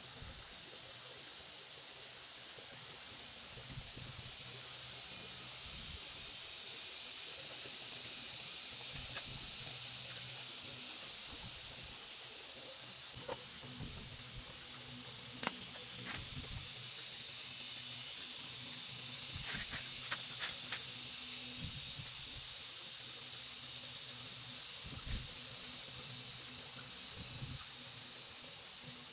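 A steady high hiss runs underneath a handful of light metallic clicks. The clicks come from small engine parts being handled and fitted into a Honda Cub's open crankcase, and they cluster in the middle of the stretch.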